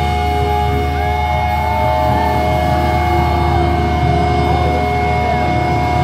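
Metalcore band playing live through a loud PA: distorted electric guitars hold a droning chord over heavy bass, with sliding pitches above it.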